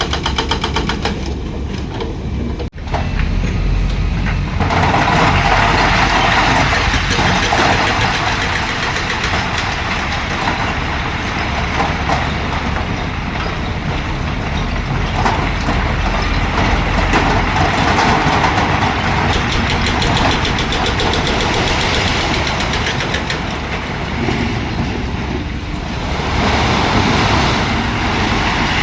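Heavy construction machinery's diesel engine running steadily, with a brief break about three seconds in; a few seconds in it grows louder and harsher, as under working load, easing off briefly near the end.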